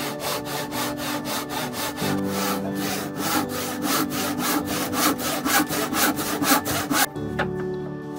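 Backsaw cutting across a softwood board in quick, even strokes, about four a second, until the cut is finished and the sawing stops abruptly about seven seconds in. Background music plays underneath.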